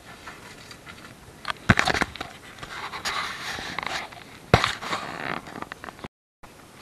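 Action camera being knocked and handled on a sailing dinghy: two sharp knocks, a little under two seconds in and again after four and a half seconds, with scraping and rustling against the housing between them over wind noise. The sound drops out briefly near the end.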